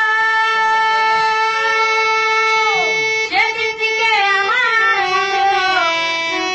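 Violin playing a slow melody: a long held note, a slide down about three seconds in, then short ornamented notes, with a steady lower note held beneath.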